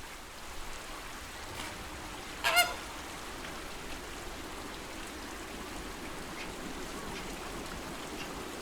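Flamingos calling over a steady wash of lake water: one loud, short honk about two and a half seconds in, with a few faint calls scattered through the rest.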